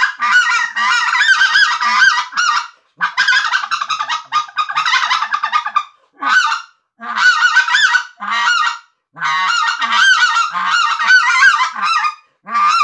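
Redbone goose call, the middle-tuned one of the three, tuned between high and low, blown by hand. It gives quick runs of honks and clucks, about six of them, with short pauses between.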